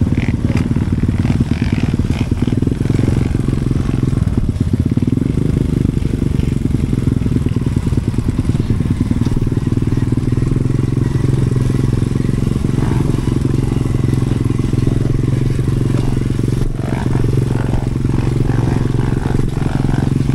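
Enduro dirt bike engine running at a steady, low pitch, its sound muffled, with no big revs and a few faint clicks.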